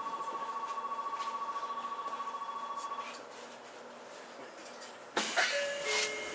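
Electronic station departure bell: a steady, rapidly pulsing two-tone ring for about the first three seconds, heard from inside a stopped train car. About five seconds in, the train doors start to close with a sudden hiss of air and a knock, along with short beeping tones.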